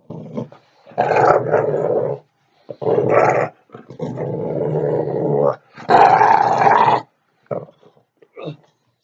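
Dog growling in play while being roughhoused by hand: four long growls in a row, then a couple of short sounds near the end.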